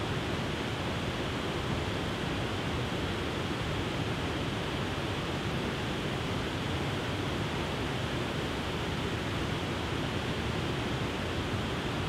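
Steady rushing of water from a broad, stepped waterfall spilling over rock ledges into a river pool, even and unchanging.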